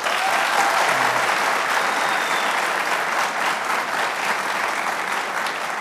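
Studio audience applauding, starting all at once and easing slightly toward the end.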